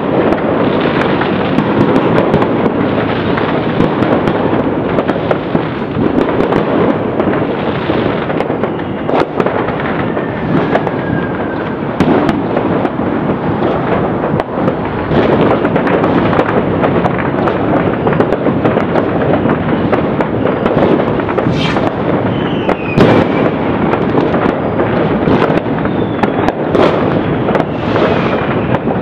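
Many fireworks and firecrackers going off at once in a dense, unbroken crackle and banging. A few short falling whistles rise out of it, about ten seconds in and twice more near the end.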